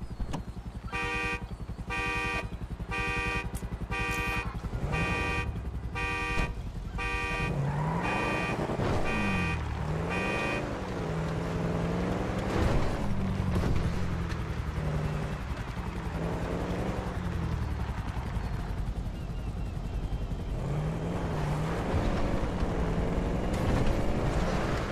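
Street traffic below with a car alarm going off: a run of short, evenly spaced beeps of one pitch for about ten seconds, then low wailing tones that swoop up and down, over a steady traffic hum.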